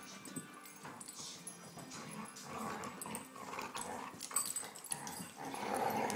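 Two dogs play-fighting, with growls and scuffling, loudest near the end.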